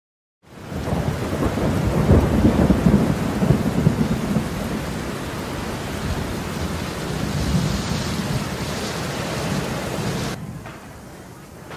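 Thunderstorm: heavy rain with rolling thunder, the rumble loudest in the first few seconds. About ten seconds in it cuts off abruptly to much quieter rain.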